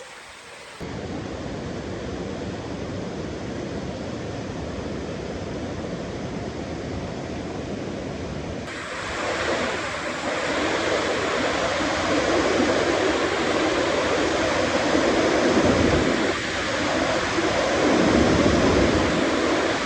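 Steady rush of running water in a mountain stream, jumping abruptly louder about a second in and again near the middle.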